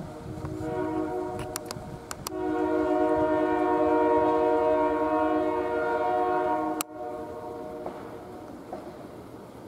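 Air horn of an MLW FPA diesel cab locomotive sounding one long chord of several notes. It starts faint, swells to full strength a couple of seconds in and holds for about four seconds, then drops off sharply and trails away weaker for about another second.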